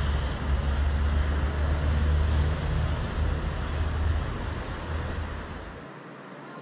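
Steady low rumble of outdoor background noise with no ball strikes, cutting off abruptly near the end.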